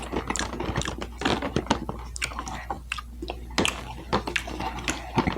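Close-miked chewing of a mouthful of BLT salad, with many irregular crunches and mouth clicks.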